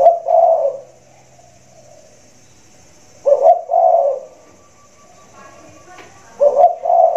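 Spotted dove (tekukur) cooing: a big-voiced two-part coo, a short note followed by a longer one, given three times about three seconds apart.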